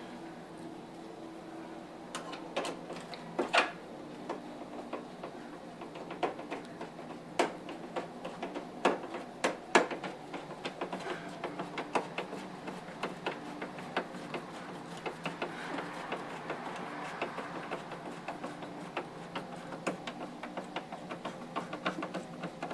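Irregular clicks and taps of hands and a tool working on a plastic third brake light and its screws as it is fitted, with clusters of quicker clicks through the middle, over a faint steady hum.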